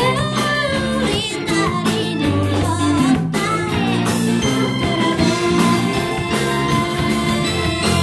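Live rock band playing: a female lead voice singing over electric guitar, keyboard, bass and drums.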